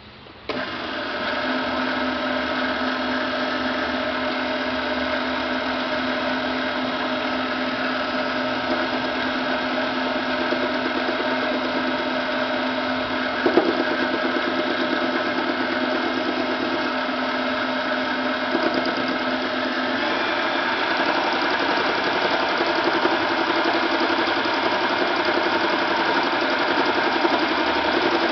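Sieg 7x10 mini lathe starting up about half a second in, then running steadily with a whine from its motor and gear drive as the chuck spins an aluminium workpiece for facing. A single sharp knock comes about halfway through, and about twenty seconds in the sound turns coarser and hissier.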